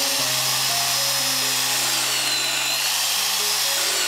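ALLSOME BG-5167 mini benchtop drill press, with its 800-watt brushed motor, running and boring holes in a strip of wood. Its high whine dips in pitch twice, a couple of seconds in and near the end, as the load changes.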